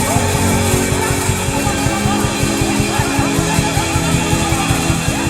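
Instrumental gospel worship music with sustained chords, guitar and a steady beat, between sung lines.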